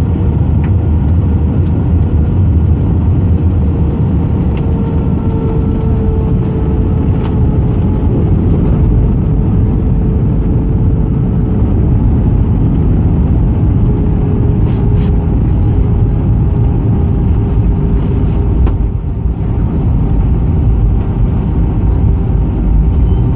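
Cabin noise of an Airbus A320 on its landing roll, spoilers raised: a loud, steady rumble from the engines, wheels and airflow, with a whine that slowly falls in pitch as the aircraft slows.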